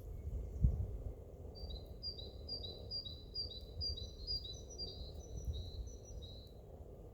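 A songbird singing a fast series of repeated two-note phrases, a high note dropping to a lower one, for about five seconds, with a second, higher series joining in over the last part. A steady low rumble runs underneath, with a single low thump near the start.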